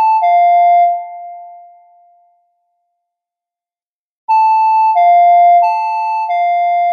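Electronic two-tone emergency alert alarm, alternating between a lower and a higher steady tone about every two-thirds of a second. About a second in it stops and its last tone dies away. After about two seconds of silence the alternating tones start again.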